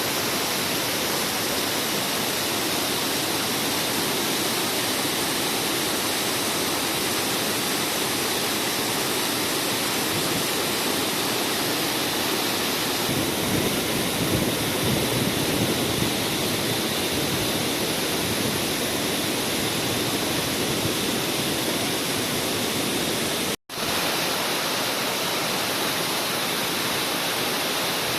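Waterfall rushing in a steady, loud roar of falling water, swelling slightly in the middle and cutting out for an instant about two-thirds of the way through.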